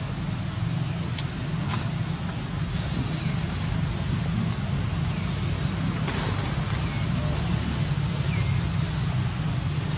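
Outdoor background: a steady low rumble under a steady high-pitched drone, with a few faint short chirps and a couple of soft clicks.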